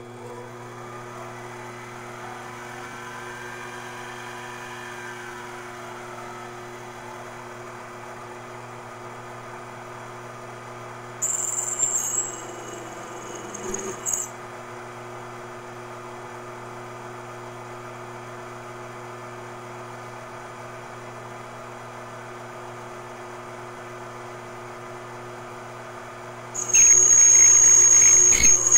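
Benchtop mini lathe running with a steady motor hum. Twice it gets louder with a high-pitched whine, briefly about eleven seconds in and again near the end, as the cutting tool bites into the workpiece.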